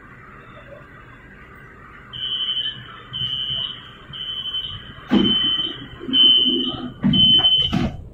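LRT train door-closing warning: six short high beeps about once a second, signalling that the doors are about to shut. Heavy thumps join the second half, the last as the doors close.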